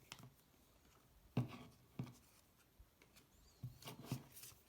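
Foil wrapper of a trading-card pack rustling and crinkling in the hands: about five short scratchy rustles with quiet gaps between them.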